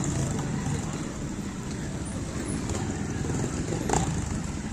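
Trial motorcycle engine running at low revs, with a short sharp knock about four seconds in.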